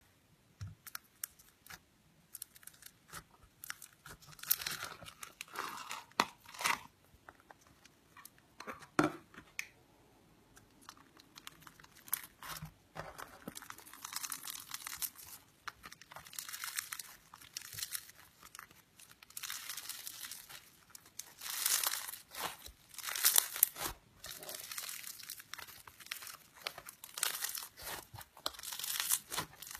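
Crunchy slime packed with foam (floam) beads being squeezed, stretched and pressed by hand, the beads crackling and popping in irregular bursts of sharp little clicks.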